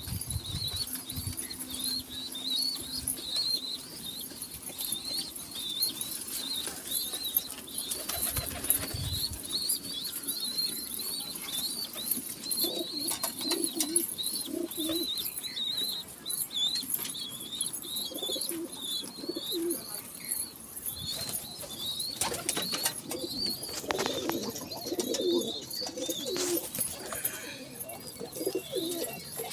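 A flock of domestic pigeons flapping their wings and scuffling while they feed, with cooing in the middle and more toward the end. A high, repeated chirping runs throughout.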